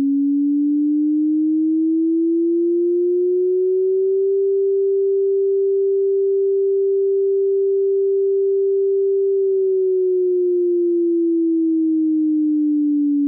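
Synthesized tsunami warning siren, the signal for a tsunami from a distant earthquake. A single pure tone rises slowly for about four seconds, holds steady, then falls slowly back near the end.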